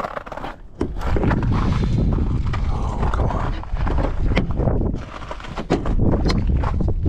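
A pickup truck's rear door being opened by its outside handle, the latch clicking several times as it comes open. A loud low rumble of noise on the microphone covers most of it from about a second in.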